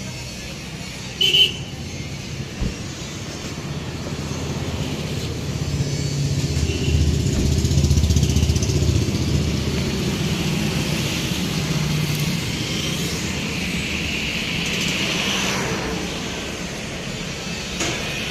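Road traffic going past: a steady engine and tyre rumble that swells as a vehicle passes in the middle. A short horn toot about a second in.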